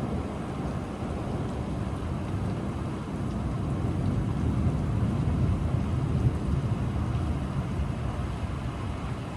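Rolling thunder: a low rumble that builds to a peak around the middle and eases off, over the steady hiss of rain.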